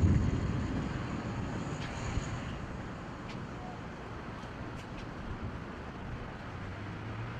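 Thunder rumbling away, fading over the first few seconds into a low steady background rumble.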